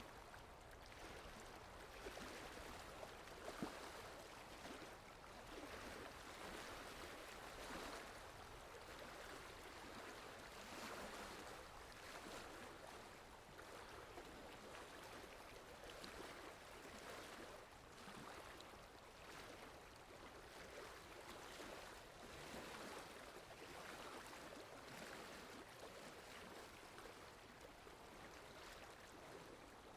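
Faint water lapping with wind, in soft irregular swells every second or two, with one sharper tap about three and a half seconds in.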